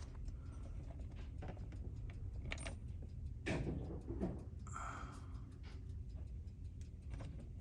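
Faint scattered clicks and rustling of hands handling a golf cart's wiring harness and connector plugs, with a slightly louder knock about three and a half seconds in.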